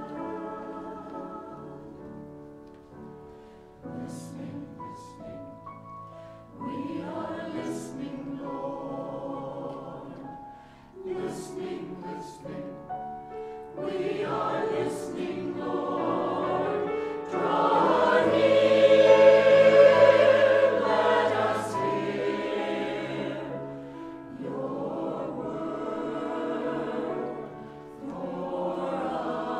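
Church choir singing an anthem. It starts softly, swells to its loudest about two-thirds of the way through, then eases back.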